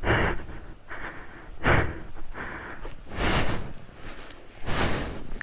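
A man breathing hard, with four loud breaths at an even pace of about one every second and a half.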